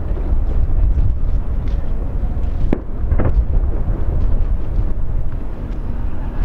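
Distant fireworks display: a continuous low rumble of aerial shell bursts echoing, with two sharper bangs about three seconds in.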